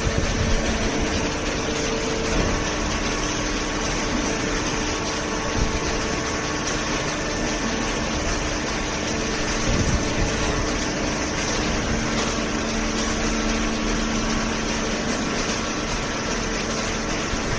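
Hydraulic power unit of a fully automatic vertical cardboard baler running steadily: an electric motor and hydraulic pump giving an even mechanical hum with a few faint knocks.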